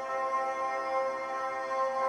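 Film trailer score: a steady held chord of sustained tones, with no beat.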